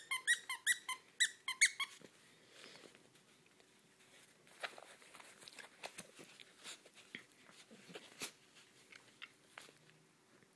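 A squeaky plush dog toy squeezed in a quick run of squeaks over the first two seconds, followed by faint scattered clicks and rustling.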